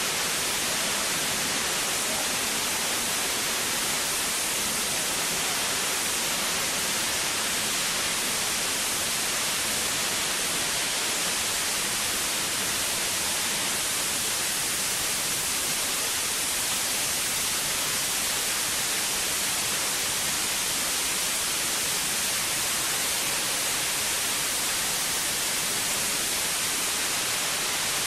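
Steady, loud, unbroken hiss of a diesel fire and pressurized spray in the enclosed engine room, with no distinct knocks, voices or changes.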